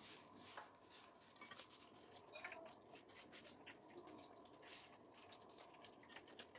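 Faint clicks and scrapes of kitchen tongs against a wok and plate as fried food is lifted out, with a slightly louder knock about two and a half seconds in.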